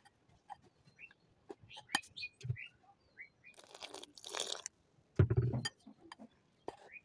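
A metal fork scraping and clicking against a glass mixing bowl as it stirs dry gram flour and spices, with water poured into the bowl about three and a half seconds in. A dull low thump follows a little after five seconds, the loudest sound here.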